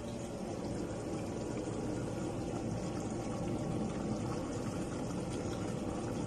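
Pot of stew boiling on a gas stove: a steady, dense bubbling.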